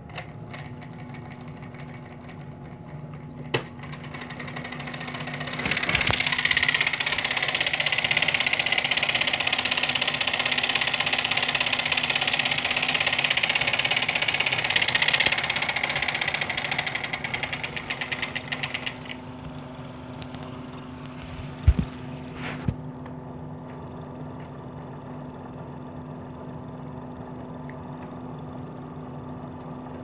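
Compressor of a homemade air conditioner running with a steady hum. A loud hiss joins for about thirteen seconds, then dies away in rapid pulses, and a few sharp clicks are heard.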